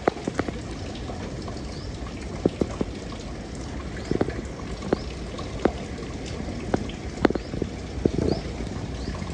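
Rain falling steadily, with heavy drops hitting and dripping at irregular moments, a few sharp splashes each second, over running water.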